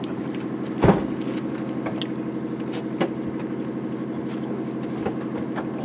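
A boat's engine running steadily with a fast even throb. A loud thump about a second in, with lighter knocks later.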